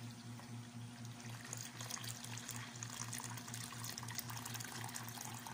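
Annatto water pouring in a steady stream into a plastic mixing bowl of sugar, flour and eggs, the bowl filling and the liquid frothing as it lands.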